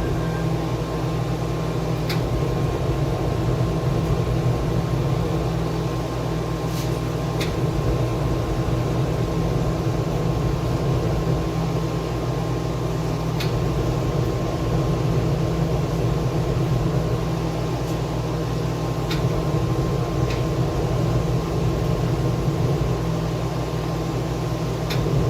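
Steady machine hum holding several constant tones, with a few faint ticks every few seconds.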